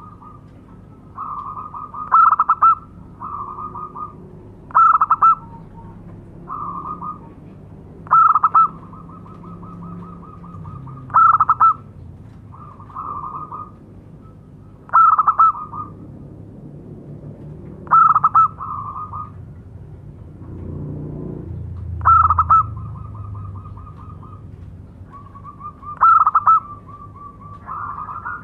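Zebra dove (perkutut) singing its cooing song: repeated phrases of rapid trilled coos, each with a louder accented note, about every three seconds.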